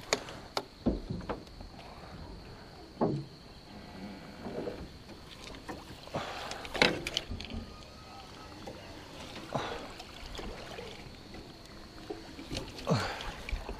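Aluminium jon boat being pushed by hand through shallow water: irregular swishes and splashes of water, with occasional sharp knocks and steps on the metal deck.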